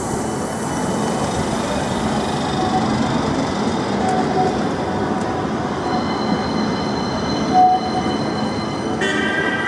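CAF Urbos 3 tram running past and away along grooved street track: a steady rumble of wheels and motors, with thin high squealing from the wheels on the curve. A louder cluster of higher tones sets in near the end.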